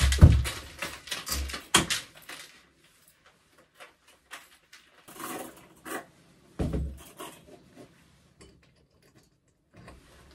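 A metal chain rattling and a plastic chick feeder knocking as the feeder is hung from the ceiling. The clatter is dense and loud for about the first two seconds, then drops to a few scattered clinks and dull thumps.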